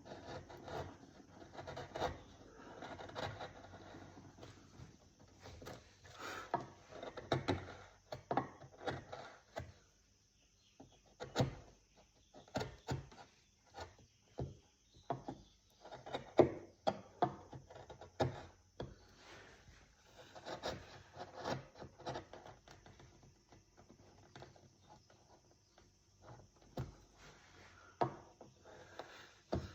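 Wood being carved by hand: a hand tool scraping and cutting in irregular strokes with sharp clicks, pausing briefly about ten seconds in.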